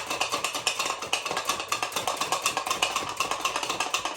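Cooked chicken breasts being shaken hard inside a lidded pressure cooker, a fast steady rattling of several shakes a second: the shake-to-shred technique that pulls the chicken apart in the pot.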